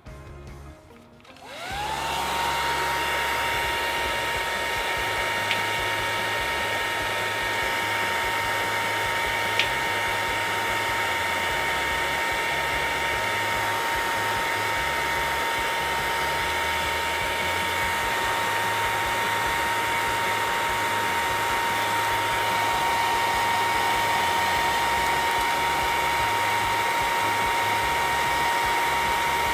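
Electric heat gun switched on about a second and a half in: its motor whine rises quickly to a steady pitch, then it runs steadily with a rush of blown air, heating warning stickers to soften their adhesive for peeling.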